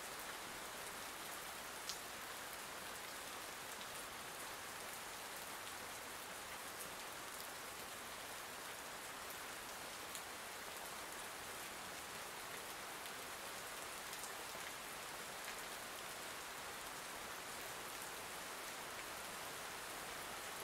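Soft, steady rain falling, an even patter with the odd single drop ticking out of it, one about two seconds in.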